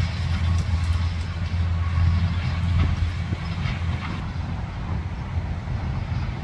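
Fiat 450 tractor's diesel engine running steadily as it pulls a hay rake, a low, even drone that drops a little in level after about four seconds.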